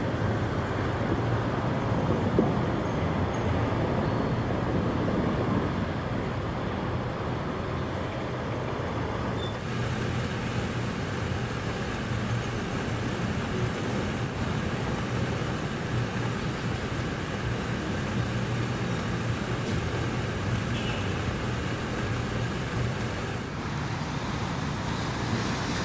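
Steady road traffic noise of passing cars and motorbikes, with no distinct single event. The background shifts abruptly about ten seconds in and again near the end, where the footage is cut.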